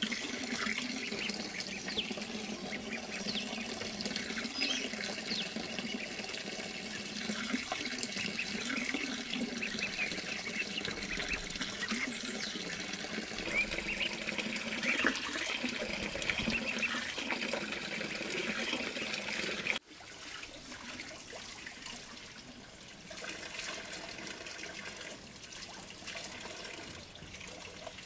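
Running water splashing steadily. About two-thirds of the way through it drops suddenly to a quieter flow of water.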